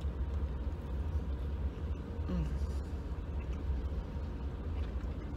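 Steady low rumble of a car ferry's engines, heard from inside a car parked on the vehicle deck. Over it come faint chewing and a short hummed "mm" about two seconds in.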